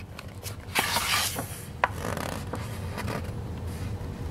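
Paper pages of a hardcover picture book being handled and turned: a scraping rub about a second in, then a sharp click, over a low steady hum.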